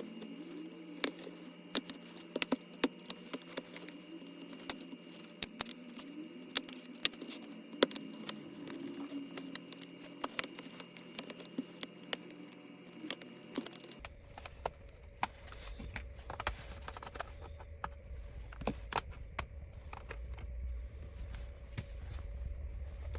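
Plastic clicks, snaps and scraping as a plastic pry card is worked along the seam of a laptop's bottom panel, popping its clips loose. The sharp, irregular clicks come every second or so.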